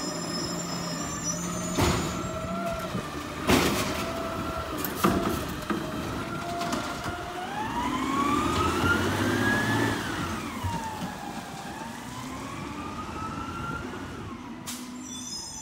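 Garbage truck pulling away. Its running note carries a whine that climbs in pitch as it accelerates, falls back about ten seconds in, and climbs again. A few sharp clanks come in the first five seconds.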